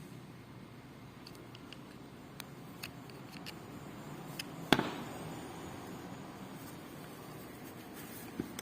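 Flathead screwdriver prying at the plastic solenoid coil on a washing machine's water inlet valve: a series of small clicks, then one sharp snap about halfway through, and a last click near the end.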